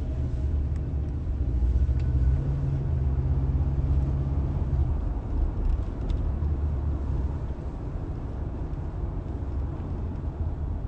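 A low steady rumble, with a low hum over it for the first few seconds that then stops.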